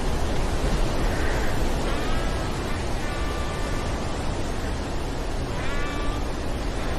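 Storm sound effect: a steady, dense rushing noise like rain and wind over a low hum. Several short pitched sounds, some rising, rise briefly above the noise.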